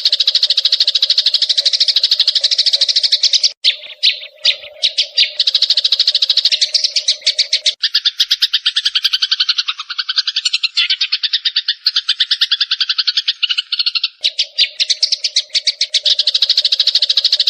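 Sparrows chirping in a rapid, unbroken stream of short calls, many per second. The chirps change character about halfway through and change back near the end.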